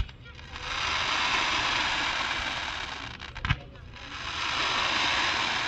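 Fireworks going off: a sharp bang at the start and another about three and a half seconds in, with a loud hiss of spark-spraying fireworks swelling and fading between them.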